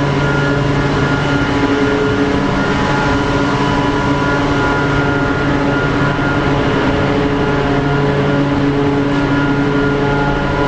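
Industrial air compressors running steadily in a compressor room: a loud, even machine drone with several steady tones over it.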